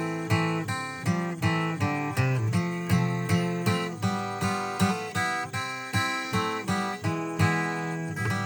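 Acoustic guitar playing an instrumental break: steadily strummed chords with picked notes, in an even rhythm.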